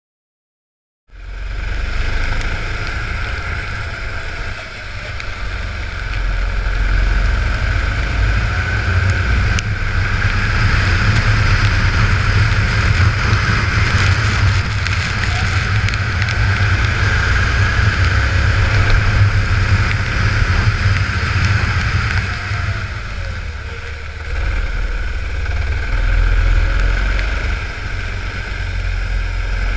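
Onboard sound of a go-kart running on a wet track: a steady engine drone mixed with heavy wind buffeting on the camera microphone, starting suddenly about a second in. The level dips briefly a few times, around five seconds in and again near twenty-four seconds.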